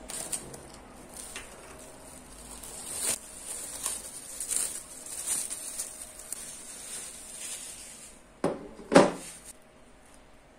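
Plastic cling film crinkling and rustling as it is handled on copper pots, with small ticks throughout. Near the end, a copper pot knocks twice against something hard, the second knock the loudest and ringing briefly.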